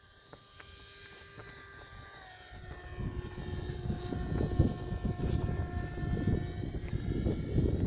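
RC model delta-wing jet's motor and propeller whining steadily in flight, its pitch stepping down about two seconds in as the throttle is eased back for slow flight. A gusty low rumble grows from about three seconds in.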